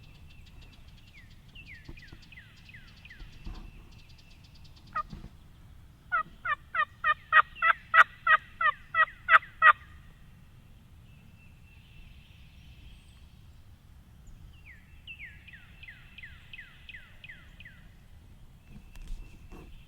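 Turkey yelps: a loud run of about fourteen evenly spaced yelps over roughly four seconds, building and then tapering, with a single note a second before. A series of quick falling notes from a smaller bird comes in twice.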